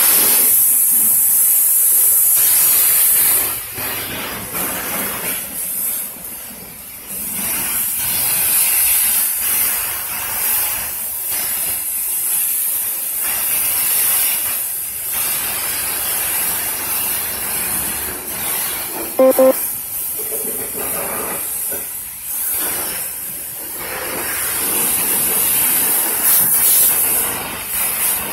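High-pressure spray wand at a self-serve car wash hissing as it blasts water over a foam-covered car. It is loudest for the first few seconds, then rises and falls as the spray is moved over the body. About two-thirds of the way through there is one brief, pitched sound.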